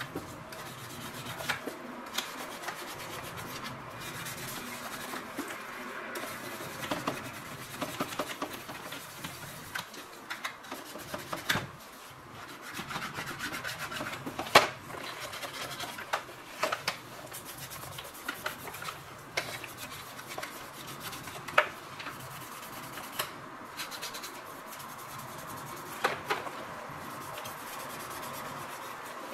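Small brush scrubbing a plastic washing-machine detergent drawer wet with hydrochloric acid solution, a continuous scratchy rubbing with scattered sharp clicks, as rust and scale are brushed off the plastic.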